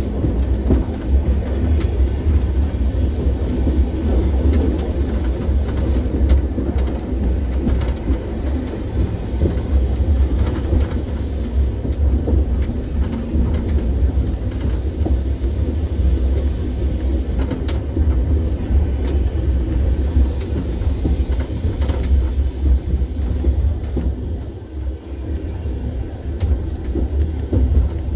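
Vintage tram running along the museum track, a steady low rumble with a few sharp clicks.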